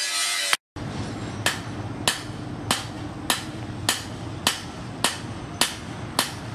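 Hand hammer striking hot steel on an anvil while forging a sword blade: a steady run of sharp metallic blows, about three every two seconds. The sound drops out briefly under a second in, then the blows continue.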